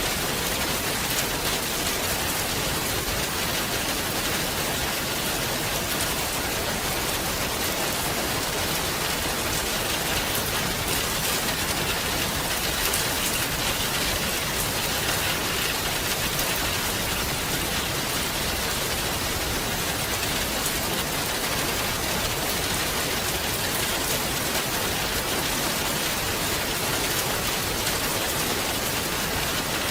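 Steady rain falling on leaves and surfaces, a dense even patter of drops with no let-up.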